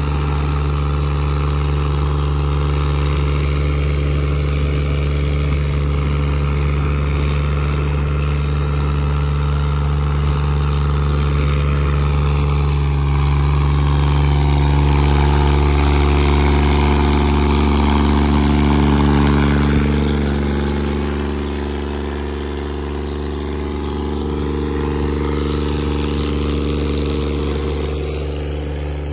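Diesel tractor engines of a Swaraj 855 and a New Holland 3630 running hard under heavy pulling load in a tractor tug-of-war, a steady loud drone. It swells a little in the middle and eases off about two-thirds of the way through.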